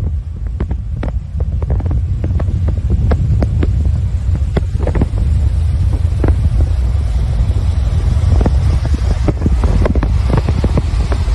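Loud, steady rumble of road and wind noise from a moving vehicle on the highway, with wind buffeting the microphone and many scattered clicks and knocks.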